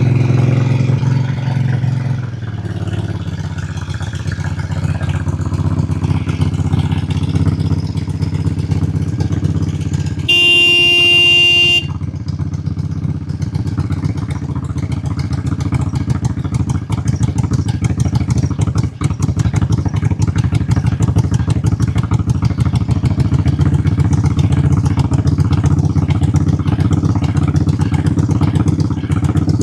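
Suzuki Volusia 800's V-twin engine idling steadily. A steady horn-like beep lasting about a second and a half sounds about ten seconds in.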